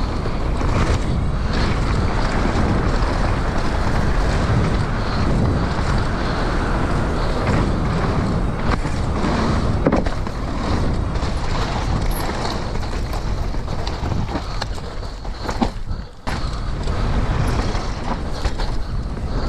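Wind rushing over a GoPro action camera's microphone on a downhill mountain bike ridden fast, with tyres running over dirt and the bike rattling and knocking over rough ground. A sharp knock comes about halfway through, and the noise drops away briefly about three quarters of the way in before picking up again.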